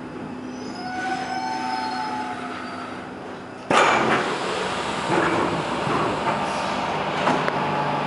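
Stockholm metro C6 car braking into a station, with thin high-pitched wheel and brake squeal over the running rumble. About three and a half seconds in, a sudden loud hiss starts and keeps going, with a steady hum beneath it.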